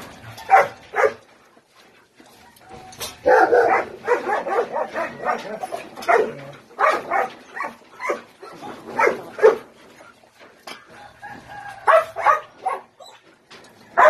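A litter of puppies jostling at a shared food dish, giving many short, high yips and barks that come in clusters with brief pauses between them.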